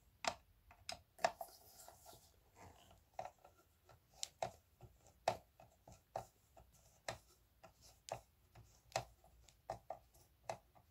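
A run of sharp clicks, about two a second, with a faint scrape near the start: hands and a tool working on a Sony speaker cabinet as it is taken apart.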